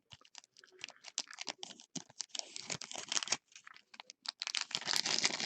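Trading cards and their packaging being handled: a dense run of quick, dry clicks and crinkles, busier in the second half.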